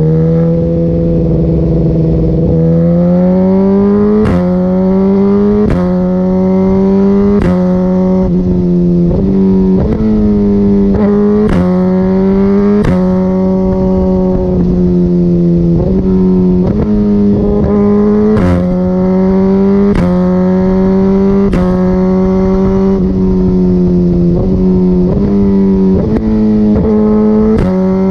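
Suzuki GSX-R1000R inline-four engine through an Akrapovic Evolution full exhaust, pulling through repeated quick-shifter gear changes. At each shift the note drops with a sharp pop from the exhaust, then climbs again, about every one to two seconds.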